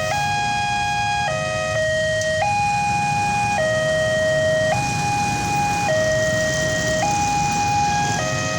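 Electronic warning siren of a railway level crossing, alternating steadily between a higher and a lower tone about once a second, over a low rumble.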